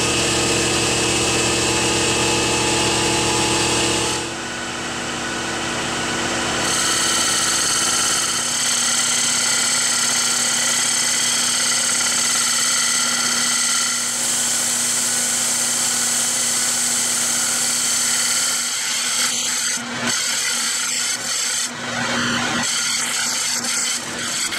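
Metal lathe running with a steady machine whine while a cutting tool turns a spinning wooden disc; the drive's note changes twice in the first eight seconds or so. From about two-thirds of the way in, the tool's scraping on the wood turns rougher and uneven.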